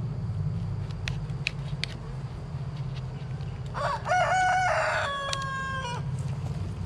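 A rooster crows once, a stepped call of about two seconds starting about four seconds in, over the steady low hum of honey bees around the open hive.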